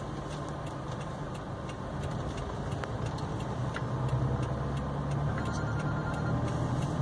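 Vehicle engine and rolling noise heard inside the cab while driving slowly, a steady low hum that grows slightly louder as the vehicle speeds up, with faint scattered ticks.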